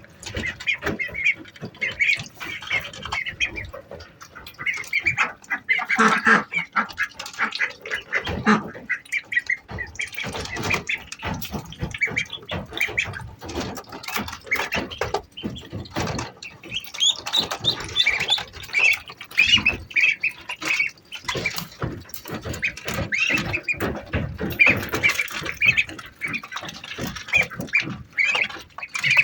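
A group of Indian Runner ducklings peeping continuously, many short high-pitched chirps overlapping, with frequent short knocks and rustles among them.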